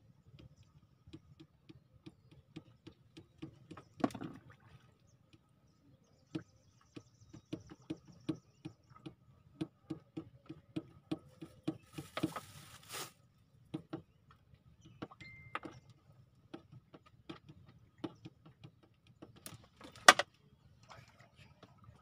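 Light, evenly spaced clicks, about three a second, going on for over ten seconds, with a short rustling burst near the middle and one sharp knock near the end.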